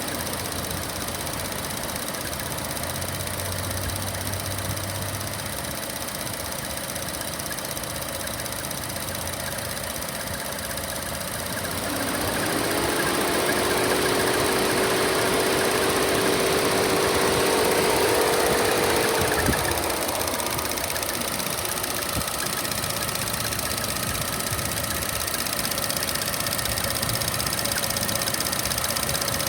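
2014 Chevy Sonic's 1.4-litre turbo engine running with the bird-like chirping squeal that comes with the AC switched on. About twelve seconds in, a pitched whine rises and holds for about seven seconds, then cuts off suddenly.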